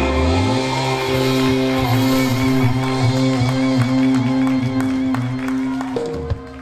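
A rock band's closing chord held and ringing out on electric guitars and bass, with a wavering high tone over it and scattered clapping from the audience. The sound fades near the end.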